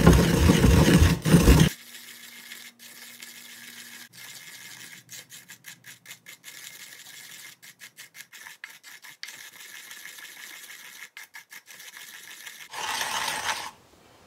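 A wooden pestle grinds dry hojicha (roasted green tea) leaves in a ridged ceramic suribachi mortar. The rapid scraping and rasping is loud for about the first two seconds, much fainter for most of the rest, and loud again near the end.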